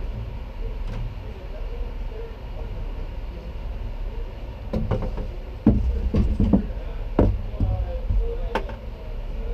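Empty black plastic oil pails knocking and clattering as they are handled, a series of sharp knocks starting about halfway through, over a steady low rumble.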